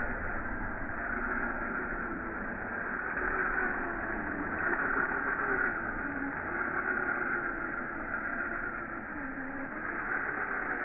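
Electric motors and gear trains of radio-controlled Traxxas TRX-4 crawlers whining as they drive through snow. The pitch rises and falls every second or two with the throttle.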